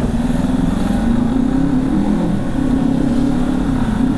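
Motorcycle engine running under way, its pitch rising and falling a little with the throttle, over a low rumble of road and wind.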